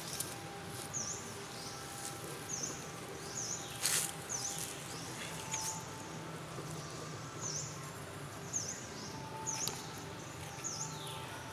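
High chirping animal call repeated more than a dozen times at a steady pace, a little under one a second, over steady outdoor background noise. There is one sharp click about four seconds in.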